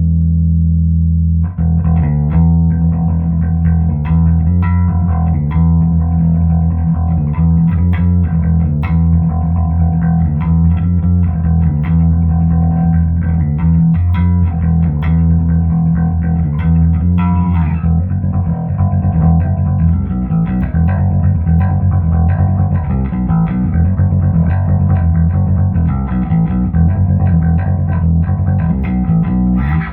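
Electric bass, a Hohner B bass with Seymour Duncan Quarter Pound J pickups, played through a Trace Elliot 12T combo amp and 1518T speaker cabinet with no effects. It starts with one held low note, then about a second and a half in, a continuous run of quickly changing plucked notes.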